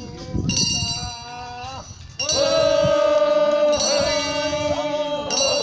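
Korean funeral bier song (sangyeo sori): a man sings a slow, long-held mournful line while a hand bell rings, struck four times about every second and a half.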